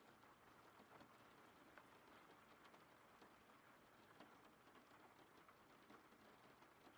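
Faint steady rain: a soft even hiss of rainfall dotted with small, scattered drop ticks.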